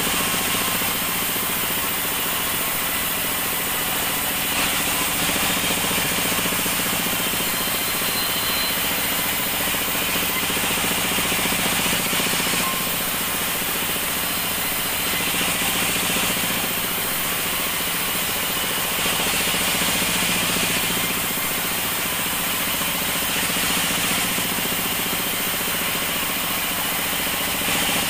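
Sawmill band saw running and cutting acacia planks. It makes a steady machine drone under a dense sawing hiss that swells and eases every few seconds as the wood feeds through.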